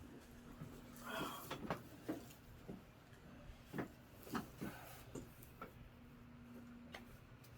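A few sharp clicks and soft knocks during a chiropractic spinal adjustment, spread irregularly with the last near the end, over a faint steady hum.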